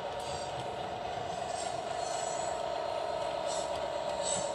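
HO-scale model track maintenance train running out of a tunnel and over points: a steady mechanical hum with faint high squeaks from the wheels on the rails now and then.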